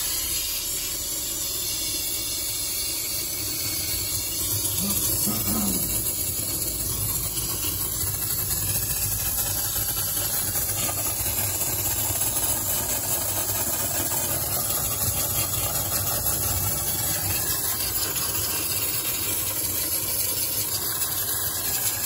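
Steam cleaner jetting a steady hiss of steam onto a refrigerator's iced-up evaporator coils, melting the ice that blocks them.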